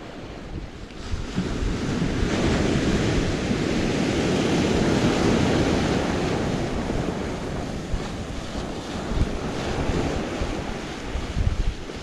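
Surf breaking and washing up a sandy beach, swelling from about a second in and easing off toward the end, with wind buffeting the microphone.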